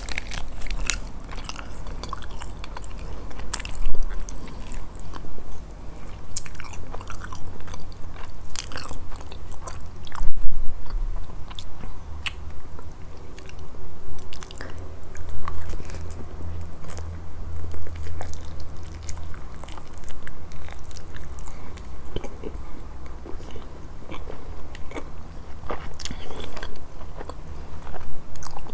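Close-miked eating of a grilled fish meal: repeated chewing and biting with crisp crunches and small wet mouth clicks, a few louder bites standing out about 4 and 10 seconds in.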